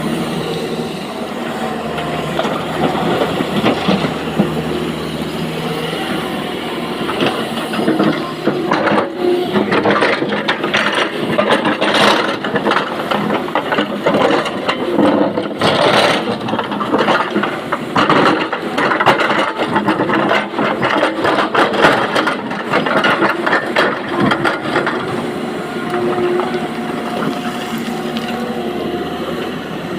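SANY excavator's diesel engine running steadily under load, with a long run of rock clattering and banging into a steel tipper body from about eight seconds in until near the end.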